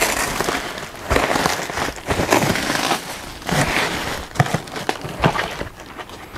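Clear plastic wrap and bubble wrap crinkling and crackling in irregular bursts as they are pulled off a foam-padded piece of equipment.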